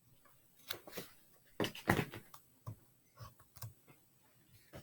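A picture book being handled and opened: a run of soft taps and paper rustles, loudest about two seconds in.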